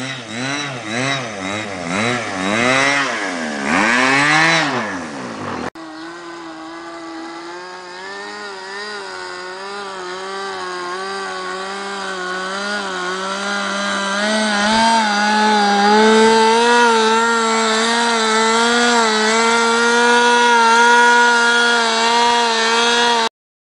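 Force .46 two-stroke glow engine of a Yak 54 model aerobatic plane in flight. For the first several seconds its note swoops up and down as the plane makes passes. After a sudden break it runs on a steadier note that slowly rises and grows louder as the plane climbs and hangs nose-up in a hover, then cuts off suddenly near the end.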